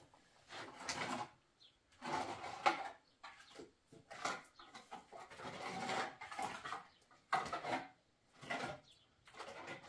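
Wet plaster being smeared and scraped onto a mud wall in short strokes, roughly one a second, with one longer run of strokes in the middle.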